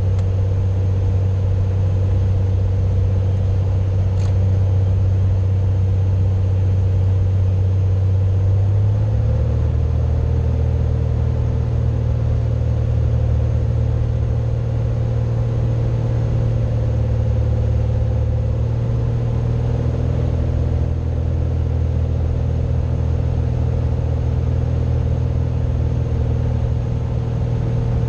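Cessna 182 single-engine piston engine and propeller droning steadily, heard from inside the cabin on approach; its pitch shifts slightly about nine seconds in, as with a power change. A single short click comes about four seconds in.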